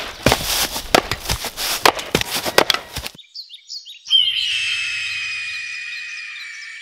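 An axe chopping and splitting firewood: a quick run of sharp wooden cracks that cuts off suddenly about three seconds in. After a few short chirps, a bird of prey gives one long, falling screech, the stock 'eagle' cry, which fades away near the end.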